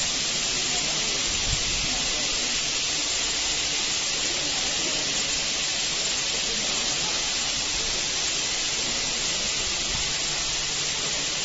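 High-pressure water jets from a CH-200 touchless car wash's spray arm hissing steadily as they rinse the foam off a car.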